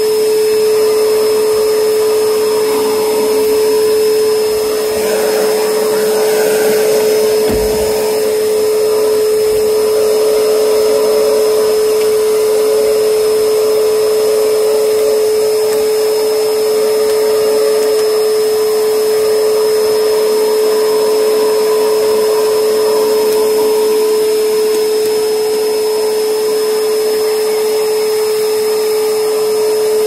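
Vacuum cleaner running steadily with a constant motor whine while its hose nozzle sucks at cloth car-seat upholstery; the rush of air shifts as the nozzle moves over the fabric. A brief low knock about seven seconds in.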